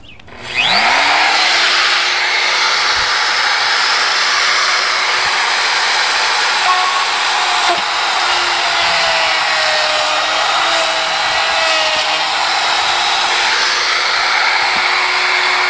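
Plunge router spinning up about half a second in, then running steadily as its plunge-trim bit bores through plastic laminate on particleboard and cuts around the hole's edge, the pitch dipping a little as it cuts. The motor starts to wind down at the very end.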